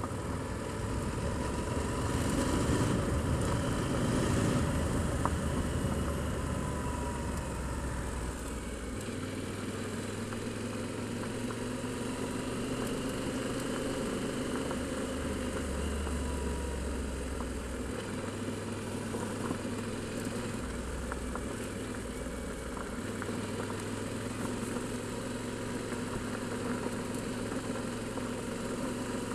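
Adventure motorcycle engine running at low speed on a gravel track, with tyre and wind noise on a helmet camera; the rushing noise is louder in the first few seconds, then the engine settles to a steady run.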